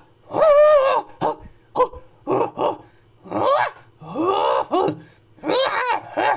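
A person's voice giving a string of wordless, primitive-sounding grunts and cries: one longer wavering call near the start, several short grunts, then three or four longer calls.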